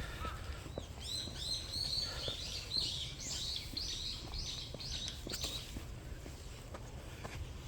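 A small songbird singing a quick run of high, repeated chirping notes, starting about a second in and stopping after about five seconds, over a steady low outdoor rumble with faint footsteps on a path.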